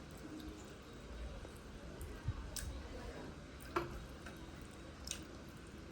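Close-up eating sounds: chewing with a few sharp wet clicks and smacks.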